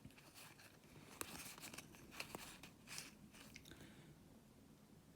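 Faint handling of board game cards: soft rustles and small sharp clicks as cards are picked up and turned over, thinning out after about four seconds.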